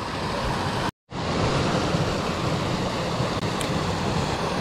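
A small waterfall pouring into a rock pool: a steady rush of white water that cuts out for a moment about a second in.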